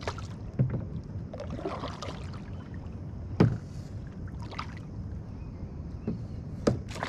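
Fishing kayak sitting on calm water: low water and hull noise with a few sharp knocks against the hull, the loudest about halfway through.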